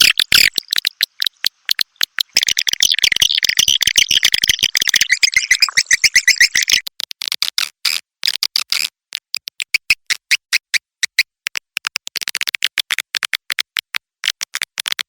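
Recorded swiftlet call sound used to lure swiftlets into a nesting house: a rapid run of dry clicks with bursts of high, buzzy twittering chirps, the densest twittering running from about two seconds in to about seven, and another burst near twelve seconds.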